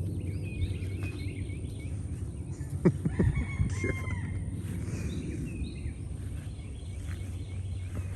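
Birds chirping and calling, with a sharp knock about three seconds in followed by a few louder calls that glide in pitch, over a steady low rumble.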